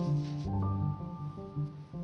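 Instrumental background music: held melody notes over a repeating low bass pattern, changing to new notes about half a second in.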